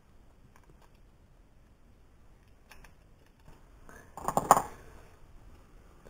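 Small tools and plastic remote-control parts being handled on a workbench: a few faint clicks, then a short burst of rapid clatter about four seconds in.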